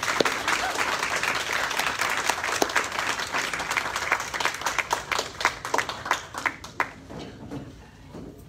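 A small group of people applauding, the clapping thinning out and dying away over the last couple of seconds.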